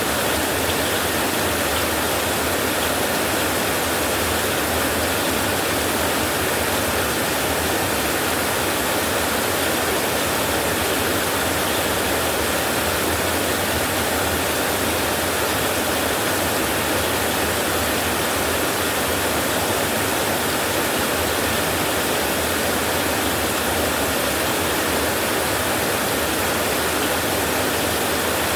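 Heavy rain falling steadily on a tin roof, an unbroken even hiss with no thunder.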